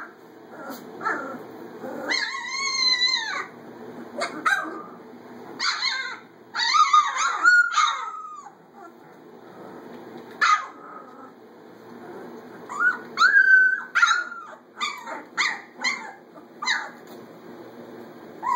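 Labrador retriever puppies whining and yipping: a series of high-pitched cries with wavering pitch, one longer whine about two seconds in and a quick run of short yips near the end.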